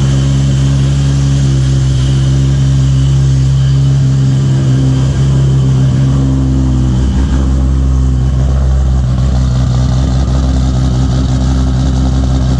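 Toyota Supra's big single-turbo inline-six idling steadily, just after a cold start.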